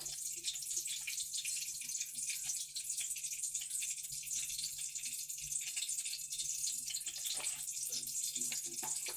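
Steady faint hiss with a low hum underneath, with no distinct knocks or splashes.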